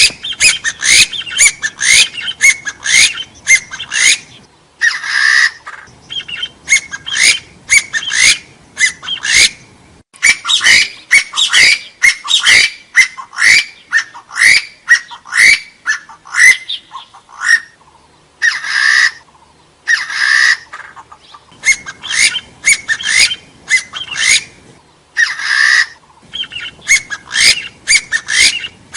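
Gà so hill partridge calling: a fast, steady run of short, upward-sliding notes, about two a second. The run is broken a few times by a longer, harsher note.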